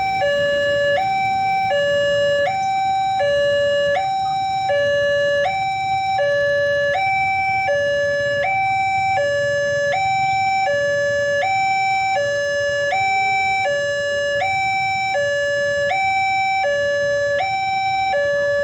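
Indonesian railway level-crossing alarm in its high-note version: an electronic two-tone signal alternating steadily between a higher and a lower tone, each held about three quarters of a second, repeating without a break.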